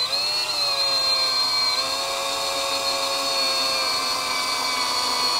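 Power drill driving a long stainless steel square-drive screw into timber, its motor whining steadily with slight shifts in pitch.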